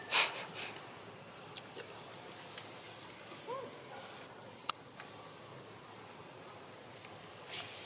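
Outdoor forest ambience with a steady insect hiss and short high chirps. A brief rustle comes just at the start and again near the end, and one sharp click a little past the middle.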